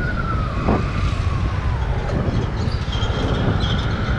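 Motor vehicle running: a low, steady rumble with a high whine over it that sags slowly in pitch about halfway through.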